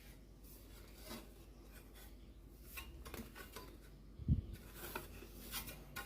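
Parts of an electric fan being handled and fitted together: scattered light clicks and rubbing, with one dull thump about four seconds in.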